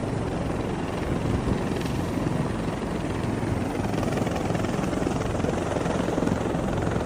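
Helicopter running steadily, its rotor and engine a continuous loud drone.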